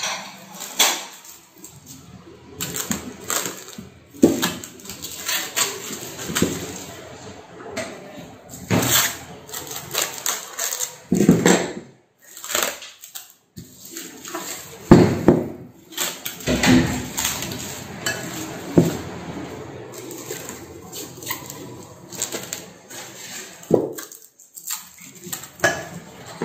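Plastic cling film being pulled off its roll and stretched and pressed over a bowl, crinkling and crackling irregularly, with light knocks as the bowl is handled.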